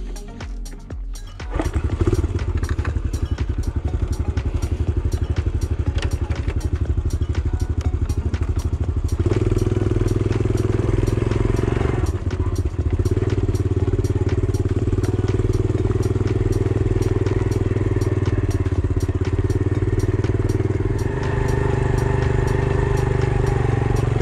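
Honda CT110 Postie bike's single-cylinder four-stroke engine running under way as the bike rides over rough, rocky ground, coming in about a second and a half in. The engine note steps up about nine seconds in, dips briefly around twelve seconds, and shifts again near the end.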